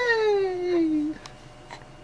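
A drawn-out, high-pitched playful "heyyy!" that glides down in pitch and breaks off about a second in.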